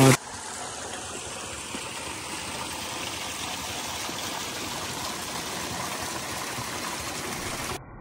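Spring water flowing steadily from a hillside spring, an even rushing and splashing of running water that cuts off abruptly near the end.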